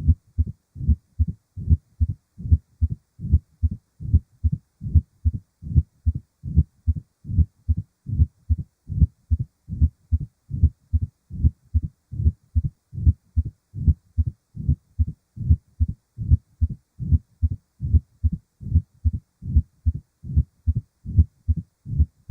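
Heart sounds heard through a stethoscope: a steady, regular rhythm of paired low thumps (lub-dub), the first and second heart sounds.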